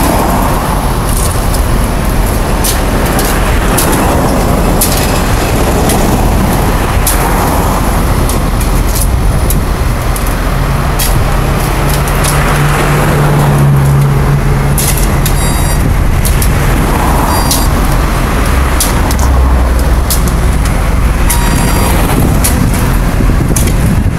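Busy road traffic, cars and trucks passing close by in a steady loud wash of engine and tyre noise. A heavier engine hum swells about halfway through, and short clicks are scattered throughout.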